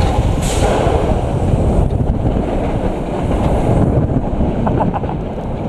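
Wind buffeting the microphone over the rumble of an Intamin spinning roller coaster car running fast along its steel track.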